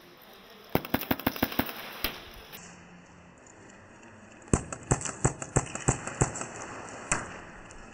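Airsoft guns firing: two strings of quick, unevenly spaced single shots, about eight in the first and about eleven in the second, with a pause between them.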